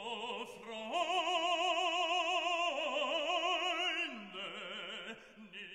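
Operatic singing: a voice holding long notes with wide vibrato, dropping in pitch and fading out after about four seconds.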